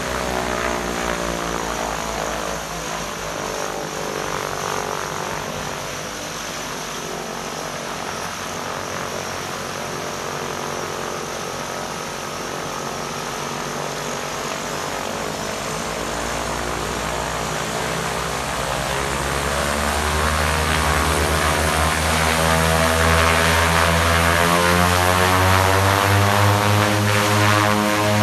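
The two turboprop engines and propellers of a de Havilland Canada DHC-6 Twin Otter running at low power as it taxis and turns on the apron. The propeller drone grows steadily louder and rises in pitch over the second half as the power comes up.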